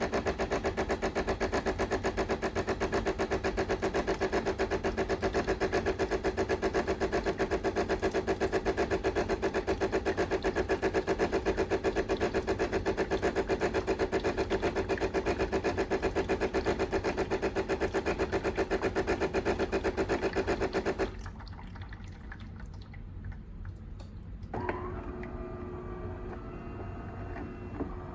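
DeLonghi Magnifica ESAM3300 espresso machine's vibratory pump running steadily with a fast buzzing pulse as it pushes water out of the spout during the warm-up rinse. It cuts off suddenly about three-quarters of the way through, leaving only faint, steady tones near the end.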